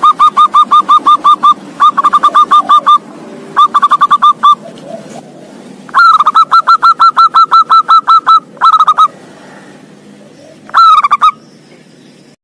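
Zebra dove (perkutut) singing: phrases of rapid, staccato cooing notes, about eight a second, broken by short pauses, with a brief final phrase near the end.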